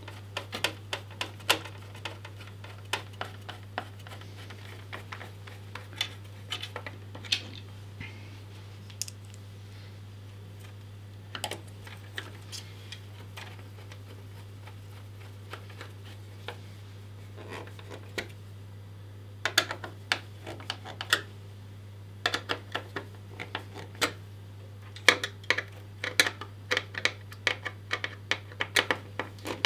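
Small sharp clicks and ticks of a screwdriver turning screws and metal parts knocking inside a PC case, coming in bursts: busy at first, sparse for a while, then busy again from about two-thirds through. A steady low hum runs underneath.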